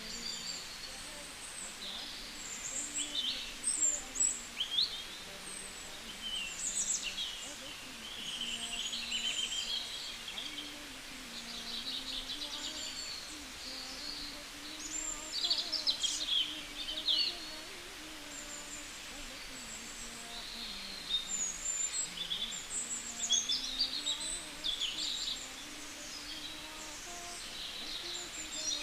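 Small birds chirping and calling: many short high chirps and quick sliding whistles, in clusters, over a steady background hiss.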